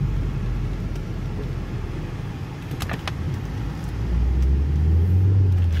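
A 2014 Ford Focus driving, heard from inside the cabin: steady low road rumble, with a louder low drone building from about four seconds in. The driver takes the drone for a worn wheel bearing, front or rear.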